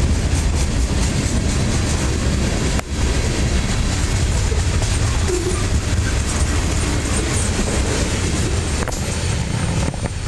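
Freight train tank cars and covered hoppers rolling past close by: the steady, loud noise of steel wheels running on the rails, with one brief dip about three seconds in.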